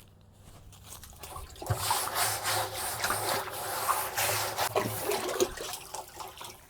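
A scrub brush working inside a chicken waterer with water sloshing, a scratchy swishing that starts about two seconds in and dies away near the end.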